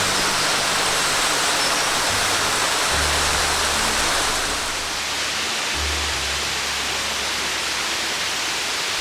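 Waterfall rushing steadily, with background music's low notes underneath; the water gets slightly quieter about four and a half seconds in.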